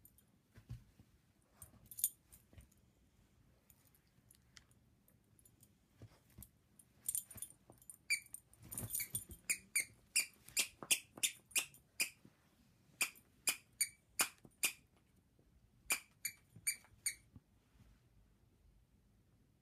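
A plush dog toy's squeaker squeaking over and over as a small dog chews it. It starts with a few faint sounds, then from about eight seconds in comes a quick run of short squeaks, about two a second, which stops a couple of seconds before the end.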